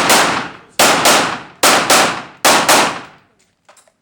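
Pistol shots in practical-shooting rhythm: one shot at the start, then three quick double-taps less than a second apart, each shot ringing out in a reverberant echo. The firing stops a little past three seconds in.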